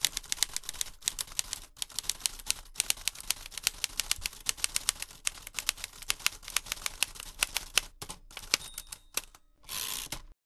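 Typewriter sound effect: rapid, uneven key strikes clattering for about nine seconds, then a brief rushing sweep near the end before it cuts off.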